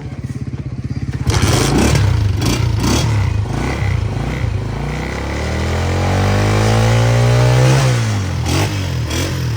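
Honda CG125 single-cylinder four-stroke engine idling, then revved: louder throttle blips about a second in, then a long rev that climbs steadily in pitch and drops sharply when the throttle is released near the end, followed by a few short blips.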